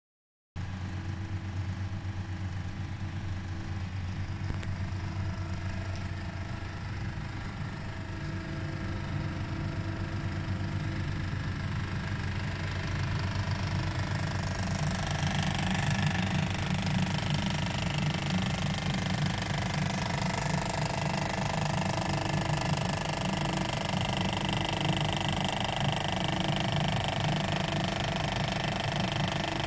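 A continuous rapid mechanical buzzing rattle, heavy and low. It swells louder and brighter from about halfway through.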